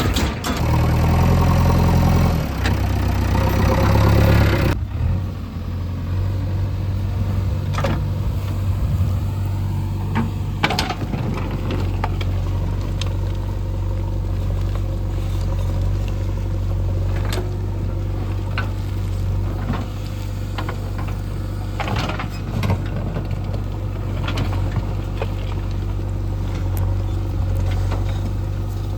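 Heavy diesel engine working at higher revs for the first few seconds, then dropping suddenly about five seconds in to a steady low idle, with occasional short clicks over it.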